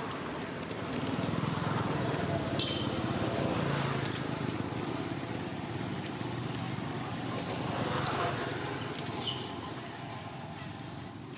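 A steady low rumble, like distant road traffic, with two brief high squeaks: one about two and a half seconds in and a rising one just after nine seconds.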